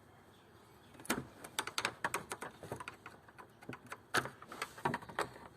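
Irregular sharp clicks and knocks of hard plastic being handled as the reverse camera's power connectors are worked loose by hand, the loudest about a second in and twice near the end.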